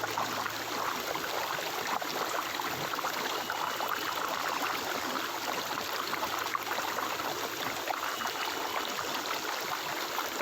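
Flowing stream water, a steady rushing and trickling.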